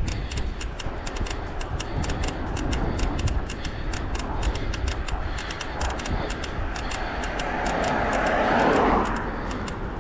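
Wind rumble on the microphone and tyre noise from a road bicycle riding on asphalt, with a steady light ticking. An oncoming car passes, growing louder to a peak about nine seconds in, then fading.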